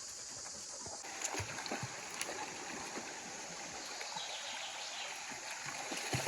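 Steady rush of flowing stream water, with scattered light clicks and rustles. The rush grows fuller about a second in.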